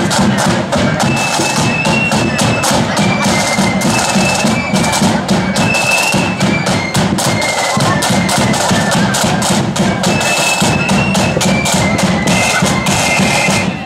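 Loyalist marching flute band playing a tune: shrill flutes carry a stepping melody over rapid rope-tensioned side drum strokes and a bass drum.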